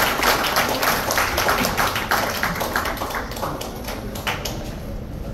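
Audience applauding, the clapping gradually thinning out and fading toward the end.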